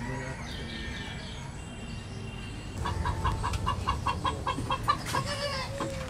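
Country chicken clucking rapidly and evenly, about five clucks a second, starting about three seconds in, with a longer arching call near the end: a bird disturbed in its coop as someone comes to catch it.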